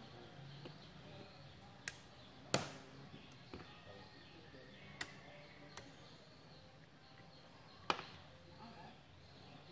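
Light handling noise with several sharp clicks from plugs and switches being worked on an electronics bench, over a faint low hum. A louder click comes near the end as the two lamp loads are switched on.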